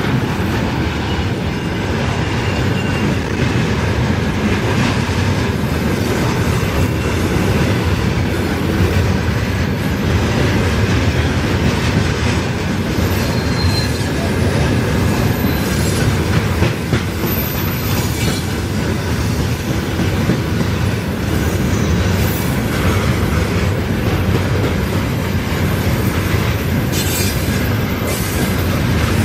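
Freight train of tank cars and wagons rolling past close by: a loud, steady rumble of wheels on rail with clacking over the rail joints and a few brief high wheel squeals.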